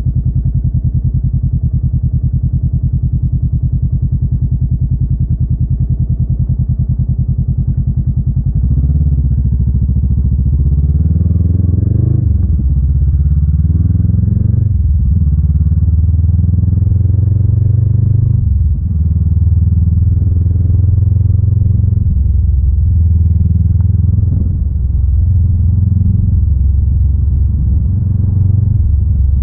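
Honda Rebel 500's parallel-twin engine idling with an even pulse for about eight seconds, then pulling away. It revs up through the gears, the pitch rising and dropping back at three shifts. It then settles into a steady cruising note.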